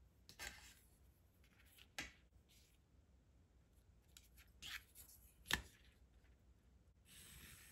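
Light handling of a plastic ruler and a pencil on card: a few scattered taps and clicks, the sharpest about five and a half seconds in. Near the end comes a short scratch of the pencil drawn along the ruler's edge.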